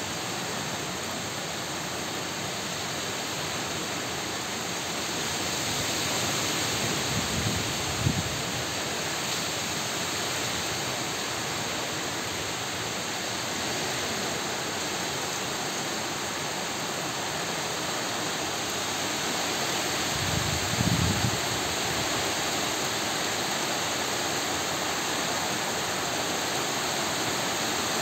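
Heavy rain pouring steadily on foliage, with wind blowing through it. Twice, about a quarter of the way in and again about three quarters through, a stronger gust buffets the microphone with a brief low rumble.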